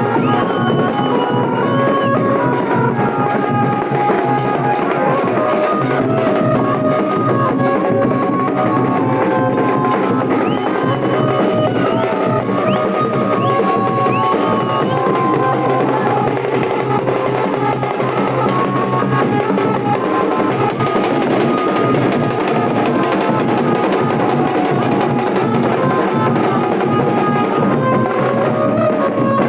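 Nashik dhol drums played in a continuous, dense rhythm, with a melody line moving over the beat.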